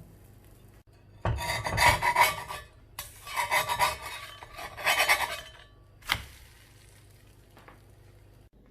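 A spatula scraping against a frying pan in two long rasping strokes, then a single sharp knock.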